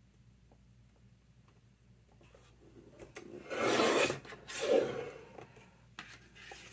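Paper rasping against a work surface in two strokes about halfway through, the first longer than the second, with fainter scraping after.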